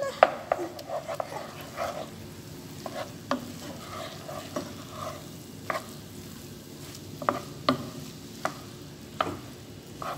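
Wooden spatula stirring and tossing fried rice in a nonstick pan, with irregular clacks of the spatula against the pan over a light sizzle.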